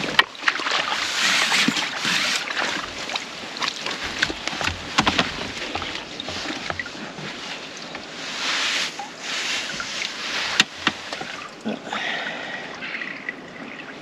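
Water splashing and sloshing as a hooked fish is drawn into a landing net and the net is lifted from the lake, in a few surges. A few sharp clicks from the tackle break through.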